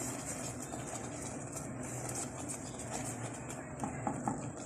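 Steady hiss and low hum of a gas stove burner under a pan of sago simmering in milk, with a few faint scrapes of a wooden spatula stirring it near the end.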